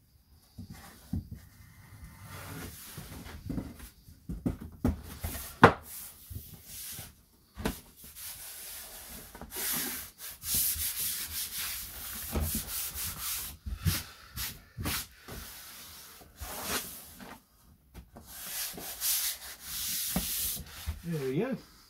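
A thin wooden board scraping, rubbing and knocking against timber framing as it is slid and pushed into place by hand, in irregular bursts with occasional sharp knocks, the loudest about six seconds in.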